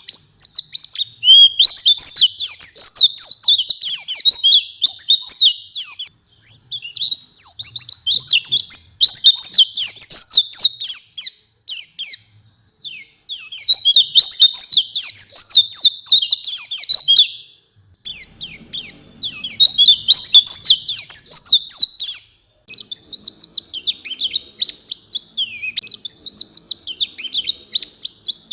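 White-eye (pleci) singing vigorously: fast, high twittering song phrases, each lasting a few seconds, with short pauses between them.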